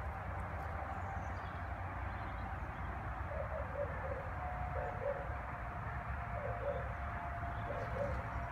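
Faint short animal calls in pairs, repeating every second or so over a steady outdoor background hum.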